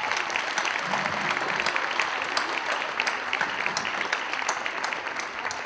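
Audience applauding, a dense spread of clapping that eases off near the end.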